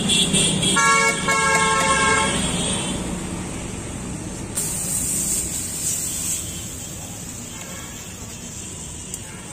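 A vehicle horn sounds once for about a second and a half near the start, over a steady rumble of street traffic. A few seconds later there is a brief hiss.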